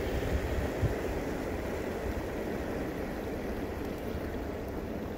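Wind buffeting the microphone while moving along a road: a steady rushing noise with a low rumble, and a brief thump about a second in.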